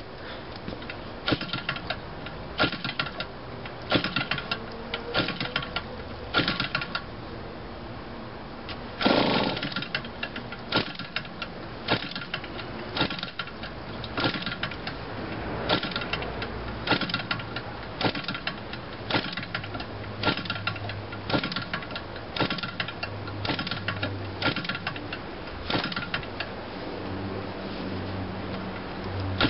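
Small gasoline model-aircraft engine being hand-flipped by its propeller again and again, each flip giving a short, sharp burst of clatter, roughly one a second, without the engine catching. About nine seconds in, one flip gives a longer, louder burst.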